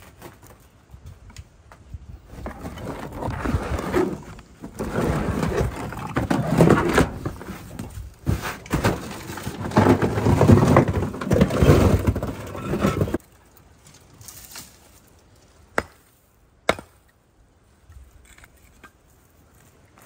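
Chunks of scrap concrete and rock being broken up and handled: about ten seconds of dense scraping and clattering that stops abruptly, then two sharp knocks about a second apart.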